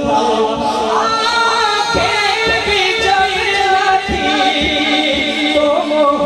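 Urdu naat sung by a solo voice in ornamented, wavering melodic runs over a steady held drone, with a few low thumps underneath.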